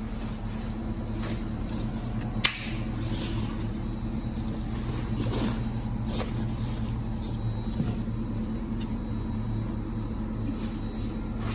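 Steady hum of the inflatable paint booth's electric blower fan as the booth deflates. There are a few faint rustles and one sharp click about two and a half seconds in.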